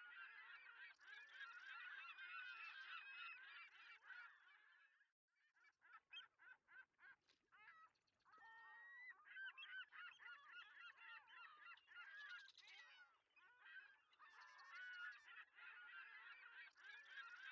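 Faint chorus of many birds calling over one another, breaking off about five seconds in and building back over the next few seconds.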